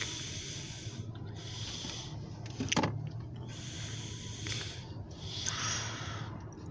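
Someone breathing close to the microphone: a series of hissy breaths about a second and a half apart, over a steady low hum. One sharp click or knock comes about three seconds in.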